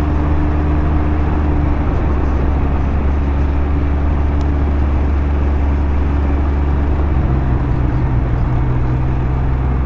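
Can-Am Ryker three-wheeler's engine running at a steady cruising speed, its note shifting slightly a couple of times, with steady wind rush on the rider's microphone.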